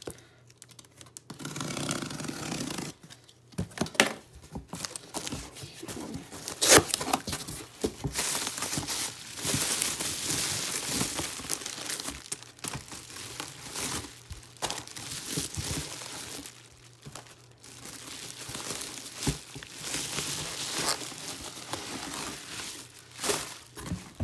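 Packaging being handled while a cardboard parcel is unpacked: bubble wrap and plastic wrapping crinkling and tearing as items are lifted out. The rustling comes and goes irregularly, with a few sharp knocks, the loudest about seven seconds in.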